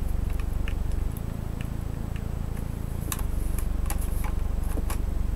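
Scattered small clicks and taps of hands handling a laptop's plastic case and parts during reassembly, with a few sharper clicks past the middle. Under them runs a steady low hum that weakens for a couple of seconds.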